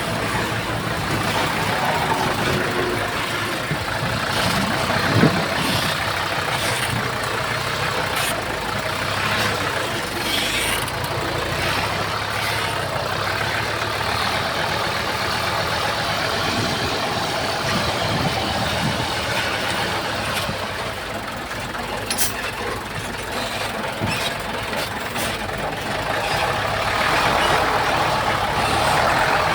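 Heavy diesel earthmoving machine running steadily under work, with scattered metallic clanks and knocks.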